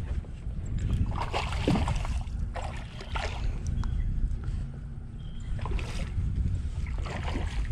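Water sloshing and splashing around a small fishing boat, with a low wind rumble on the microphone. A few short rushing splashes come at uneven intervals.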